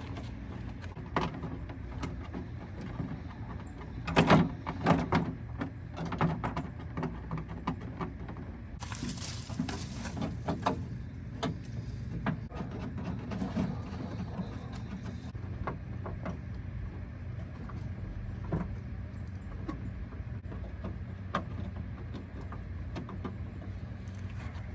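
Scattered clicks and knocks of hands working on a car door panel while a door card is fitted, with a louder cluster of knocks about four seconds in and a brief rushing noise near the middle, over a steady low hum.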